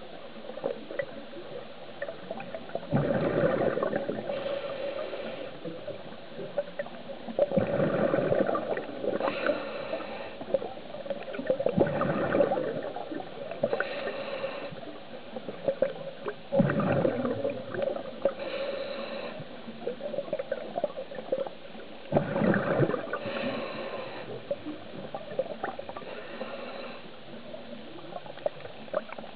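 Scuba diver breathing through a regulator underwater. The exhaled bubbles gurgle out in five surges about four to five seconds apart, with the fainter hiss of each inhalation between them.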